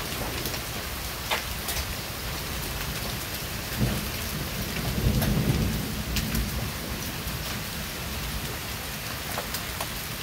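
Heavy rain pouring steadily, with scattered sharp ticks of small hailstones striking. A low rumble of thunder rises about four seconds in and fades over the next two seconds.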